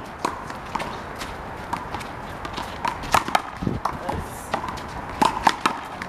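Rubber handball being struck by hand and smacking off the concrete wall and court during a one-wall doubles rally: a string of sharp, irregular smacks.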